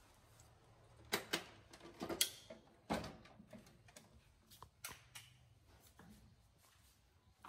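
Scattered sharp clicks and knocks from household handling, the loudest between about one and three seconds in. A few lighter clicks come around five seconds in, as the push-button switches on a standing electric fan are pressed.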